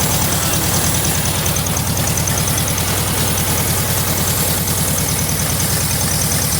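1974 Volkswagen Beetle's air-cooled flat-four engine idling steadily with propane being fed at an intake boot. The engine runs smoother as the propane reaches a vacuum leak and enriches the lean mixture.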